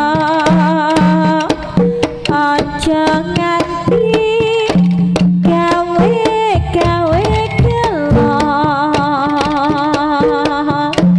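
Live jaranan dance music from a Javanese ensemble: kendang hand drums keep a fast beat under a sustained, wavering melody line, with low held notes beneath.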